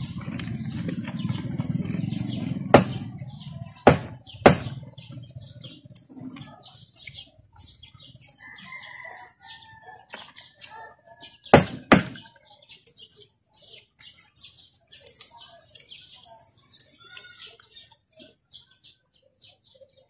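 Eggs cracked against a wooden plank: a few sharp knocks, two of them in pairs about half a second apart, among light crackling of eggshell being picked off. Birds chirp faintly in the background.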